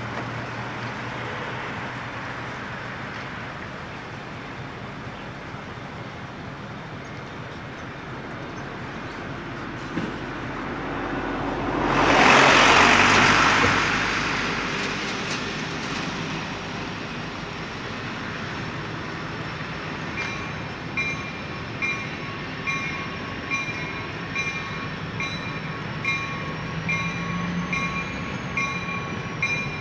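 A box truck passes close by about twelve seconds in, the loudest sound. From about twenty seconds in, the approaching CSX GP40-2 locomotive's bell rings steadily, about one and a half strokes a second, over the growing sound of its diesel engine.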